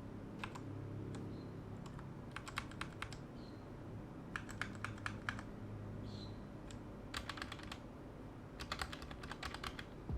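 Keys of a Royal Kludge RK84 mechanical keyboard being pressed in short clusters of several quick clicks, with brief pauses between the clusters.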